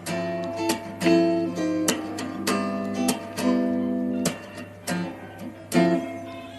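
Background music: guitar strumming chords in a steady rhythm.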